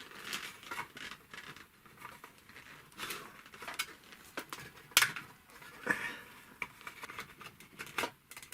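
Screwdriver working a screw out of an industrial sewing machine's housing: scattered small metal clicks and short scrapes, with one sharper click about five seconds in.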